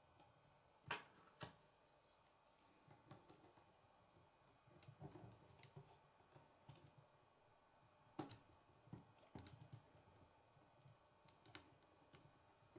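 Hard plastic K'nex rods and connectors clicking as they are handled and snapped together, in scattered sharp clicks with short clusters about five seconds in and again around eight to nine and a half seconds.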